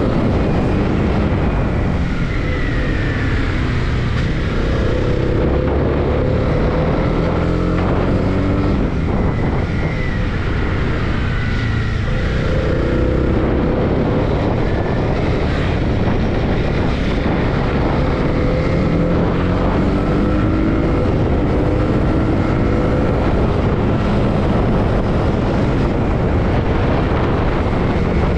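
Honda motorcycle engine running at road speed, its pitch climbing and falling again and again with the throttle, over wind rushing past the microphone.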